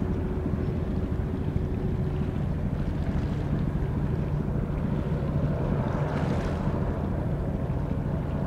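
Steady low rumble of a ship's engines, with wind noise on the microphone and a brief rushing swell about six seconds in.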